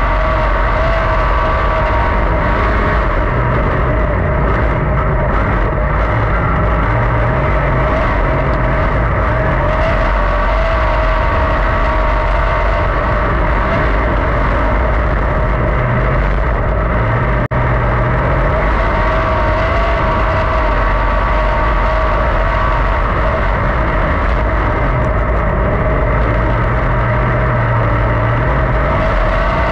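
410 sprint car's V8 engine running at racing speed, heard from inside the cockpit: a loud, steady drone whose pitch wavers slightly as the throttle works. The sound drops out for an instant a little past the middle.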